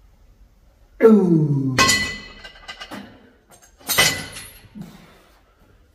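A man's drawn-out groan of effort at the end of a cable fly set, falling in pitch, followed by metal clanks of the cable machine's weights as the handle is let go: one loud ringing clank about two seconds in and a smaller one about four seconds in.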